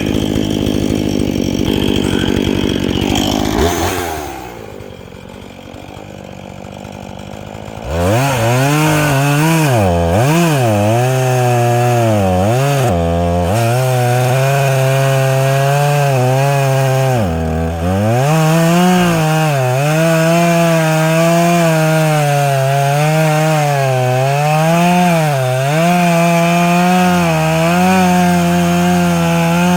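Chainsaw engine running hard, dropping to a low idle about four seconds in, then revved up again about eight seconds in. Its high buzzing pitch dips and recovers again and again as the chain bogs down in the wood.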